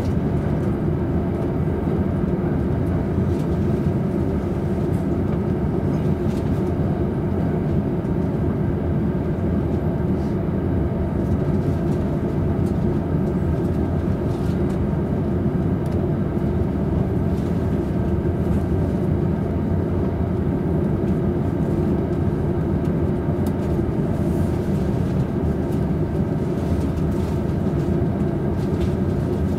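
Steady running noise of a JR East Tōkaidō Line train at speed, heard inside the upper deck of a double-decker Green car: an even, low-pitched rumble from the wheels on the rails and the running gear, with faint steady tones and no change in level.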